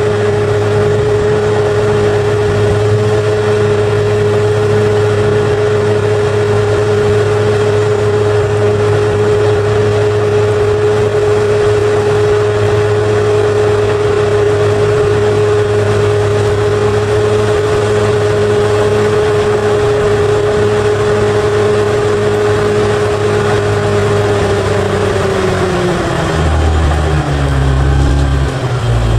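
Bulldozer diesel engine running steadily under load, with a strong steady whine over its low drone. Near the end the whine falls in pitch and the engine note drops and turns rougher as the machine slows.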